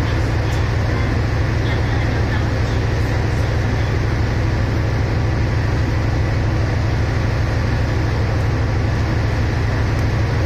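Diesel engine of a stationary passenger train running steadily at idle: a loud, unchanging deep drone.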